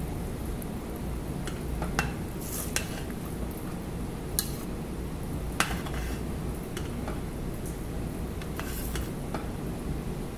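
Spoon stirring a pot of simmering saluyot (molokhia) stew with chicken, clinking against the pot several times over a steady low bubbling.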